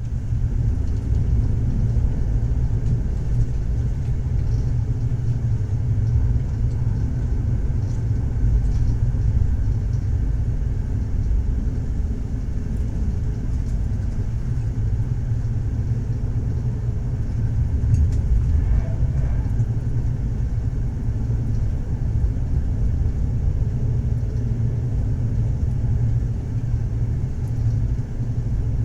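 Moving train, a steady low rumble of wheels running on the rails.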